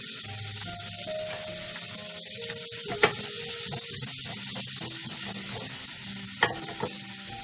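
Fried sweet potato sticks sizzling in a frying pan of bubbling butter and honey as the pan is tossed and stirred, a steady hiss. Two sharp knocks cut through it, about three seconds in and again near the end.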